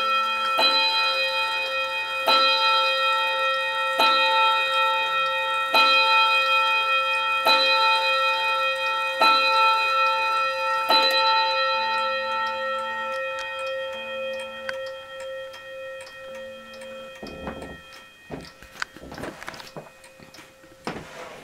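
Striking clock sounding the hour on a bell hammered by an automaton figure, with seven strokes about 1.7 s apart, the last of a count of eleven. After the final stroke, a little past halfway, the bell rings on and fades, and the clock's ticking and a few small knocks are left.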